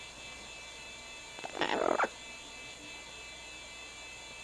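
A double yellow-headed Amazon parrot gives one short, harsh call about a second and a half in, over a steady electrical hum. The call sounds mad, but it is play.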